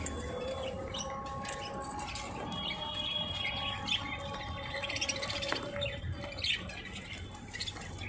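A flock of budgerigars chirping and chattering while they crowd a plate to feed, with thicker runs of short chirps in the middle, over a steady background hum.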